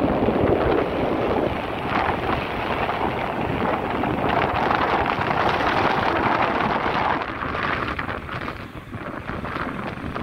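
Wind buffeting the microphone of a camera mounted on a moving motorcycle, a loud steady rush that eases somewhat about seven or eight seconds in as the bike takes a hairpin bend.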